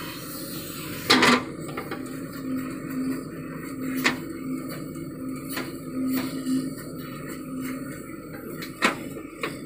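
JCB 3DX backhoe loader digging: its diesel engine and hydraulics run with a steady hum, broken by a few sharp knocks and clanks from the bucket and clods of soil, the loudest about a second in.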